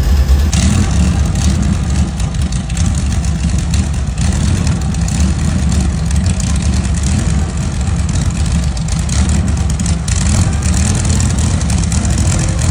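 Brantly B2 helicopter's four-cylinder Lycoming piston engine running steadily on the ground, back in life after years of standing with cleaned fuel lines and new filters.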